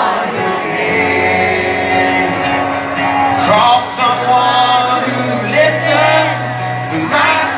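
Live music: a man singing over an acoustic guitar, a held low note under the melody, heard from out in the audience of a large hall.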